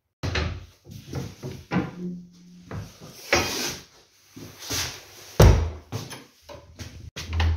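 Clacks and knocks of a hand working an old metal sliding bolt latch on a door and pulling the door open, with a loud knock about five and a half seconds in and a low rumble near the end.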